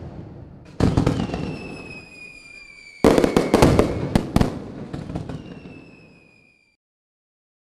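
Aerial fireworks shells bursting: a bang about a second in, followed by a slowly falling whistle, then a rapid cluster of bangs and crackles around three to four and a half seconds, with more falling whistles as the sound dies away.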